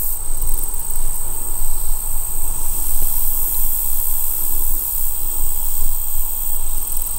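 Wind buffeting the microphone with a fluctuating low rumble, over a steady high-pitched insect chorus from the field.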